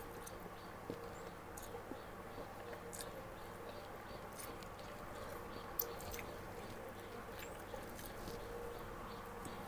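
Faint mouth sounds of a person eating fried instant noodles with chopsticks, slurping and chewing, with small wet clicks scattered throughout. A steady low hum runs underneath.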